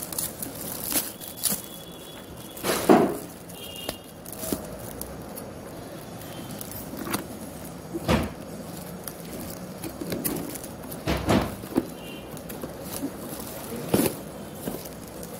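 Metallic foil gift wrap crinkling and rustling in irregular bursts as it is pulled off a cardboard box, with the box knocking as it is handled.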